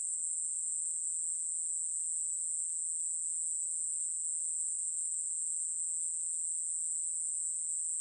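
Yeochibejjangi katydid singing: one continuous, unbroken high-pitched buzz, steady in level throughout.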